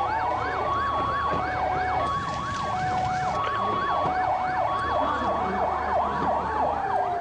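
Several emergency sirens sounding together over a low steady rumble: a fast yelp sweeping up and down about four times a second, a two-tone hi-lo alternating about every 0.7 s, and a slow wail that rises and falls.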